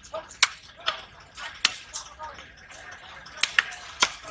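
Knife chopping a large rohu into steaks on a wooden block: several sharp, irregular knocks as the blade cuts through the fish and strikes the wood, with faint voices behind.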